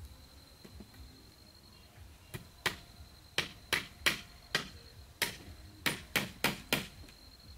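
Hammer driving a nail into a wooden frame post: about a dozen sharp strikes at an uneven pace, starting a couple of seconds in.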